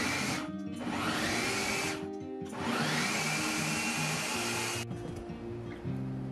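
Food processor chopping green tomatoes, onions and jalapeños for salsa, run in pulses: the motor cuts out briefly and spins back up with a rising whine twice, then stops about five seconds in.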